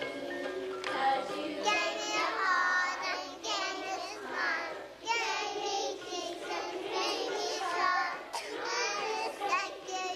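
Young children singing a song together, in short sung phrases.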